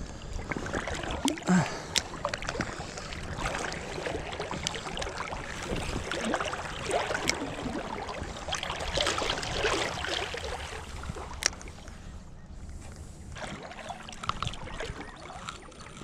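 Fast creek current rushing and splashing around a wader's legs, with a steady wash of water and occasional sharp little ticks.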